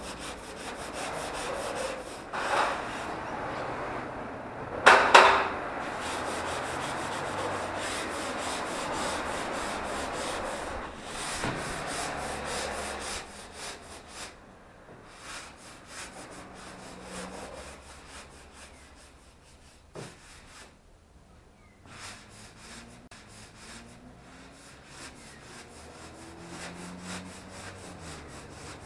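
A sanding pad rubbing over dried plaster filler in repeated strokes, with a couple of louder bumps in the first few seconds. The rasp grows fainter in the second half.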